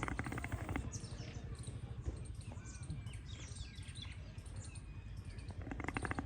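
Several birds chirping with short, quick sliding notes, over a steady low rumble. A harsh, rapidly pulsing rattle is heard in the first second and again near the end.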